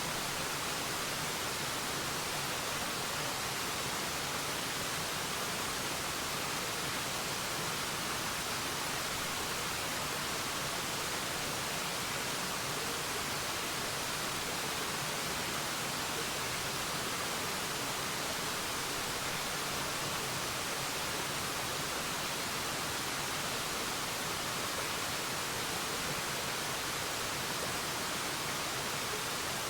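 Waterfall rushing in a steady, even hiss that does not change, with little low rumble.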